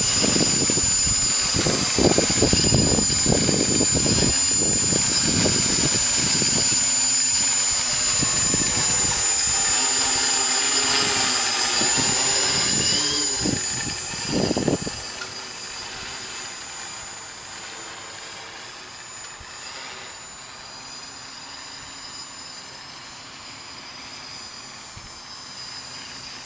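A running machine with a steady high whine makes a strange, irregular clicking or popping sound for about the first fifteen seconds; then the popping stops and it goes on more quietly and steadily.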